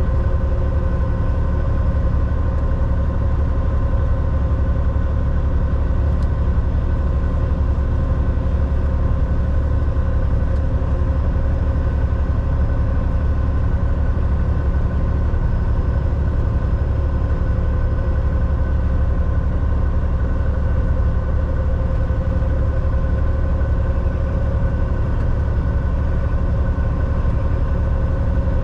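Semi truck driving at a steady pace: its engine and road noise run as a constant low rumble, with a few steady tones higher up.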